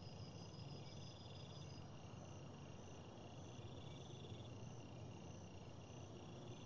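Faint night ambience of crickets chirping in repeated short trills, over a low steady hum.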